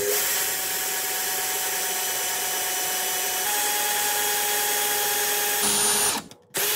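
Craftsman power drill running steadily with a 1/8-inch bit, boring a pilot hole into a wooden workbench top. Its whine steps up slightly in pitch about halfway through, stops shortly before the end, then starts again for a moment.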